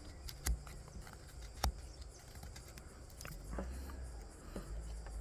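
Knife blade carving a notch in hard pine: scattered sharp clicks and ticks as the blade bites and chips off wood, the loudest about half a second and just under two seconds in.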